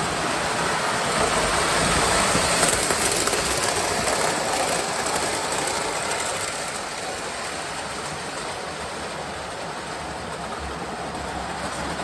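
O scale model train running past on the layout track, its wheels and motor giving a steady rumble and clatter on the rails. It is loudest in the first half and then eases off as it moves away.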